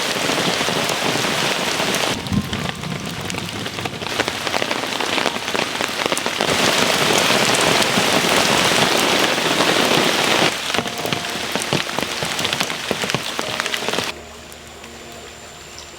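Heavy rain falling, loud and steady, coming in several abrupt stretches of differing loudness. About fourteen seconds in it drops much quieter.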